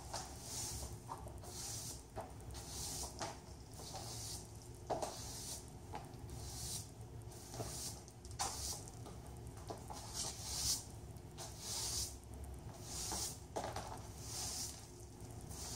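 A plastic broom sweeping a hard floor in repeated swishing strokes, about one a second, with short clicks of stiletto heels stepping on the floor between strokes.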